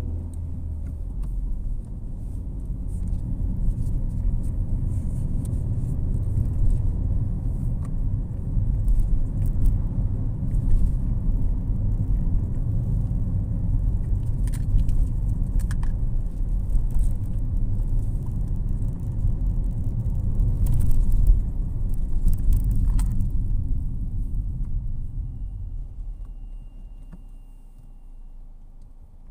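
Car engine and tyre road noise heard from inside the cabin, a steady low rumble while driving. Near the end it dies away as the car slows to a stop.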